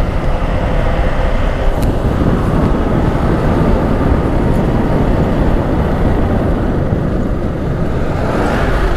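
Motorcycle riding at road speed, heard from on the bike: the engine runs steadily under continuous wind and road noise.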